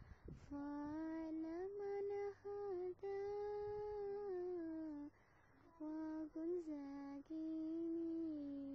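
A single female voice singing a sholawat, an Islamic devotional song, in long held notes with sliding ornaments, phrase by phrase with short breaths between; no instruments are heard.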